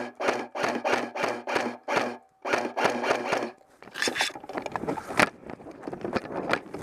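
Music cutting in abruptly from silence: a rhythmic pulse about three times a second over steady low notes, growing busier about halfway through.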